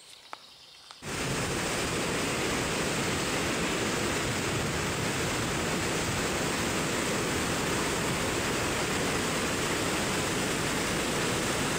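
Water spilling steadily over the gates of a canal lock flight: a constant, even rushing that starts abruptly about a second in.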